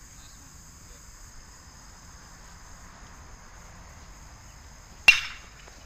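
A baseball bat strikes a pitched ball once, about five seconds in: a sharp crack with a short ringing tail. Insects keep up a steady high trill behind it.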